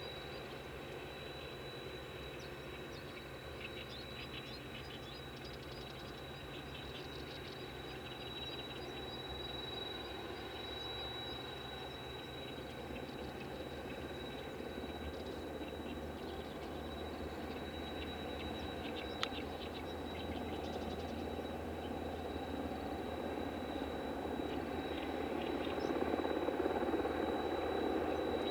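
Steady machinery hum with a constant high whine, growing louder near the end, with a few brief bird chirps over it.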